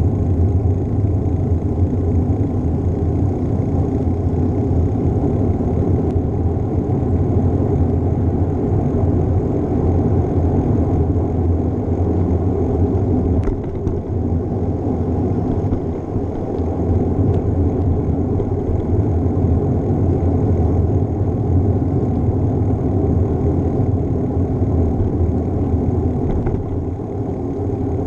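Steady low wind rumble buffeting a GoPro's microphone on a moving bicycle, with a brief click about halfway through.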